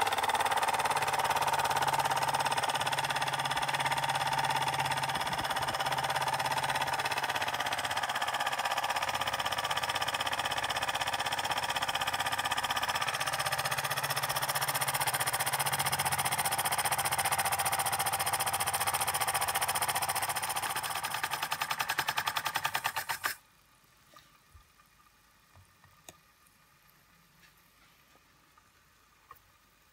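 L.J.S.M. toy oscillating steam engine running fast: a rapid, even beat with a steady hiss of steam. It cuts off suddenly about 23 seconds in, leaving only a few faint clicks.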